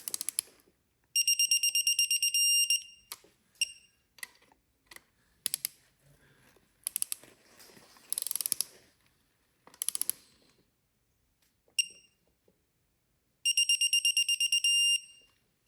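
Digital torque wrench beeping as a cam cap bolt is tightened: quick beeps that run together into a steady tone as the set torque is reached, twice, with short single beeps and clicks of tool handling between.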